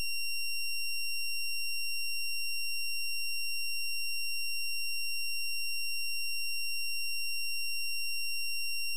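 A steady, high-pitched electronic tone, unchanging in pitch and level, with no other sound under it; it cuts off abruptly into silence.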